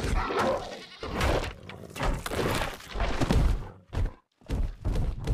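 Goat bleating, several cries about a second apart.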